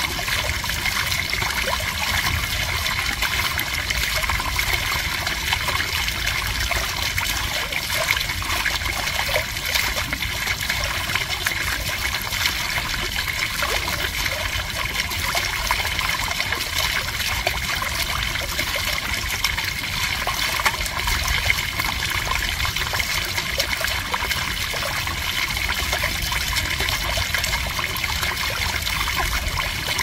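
Shallow stream water trickling and babbling over a pebble bed, a steady, even flow with a low rumble beneath.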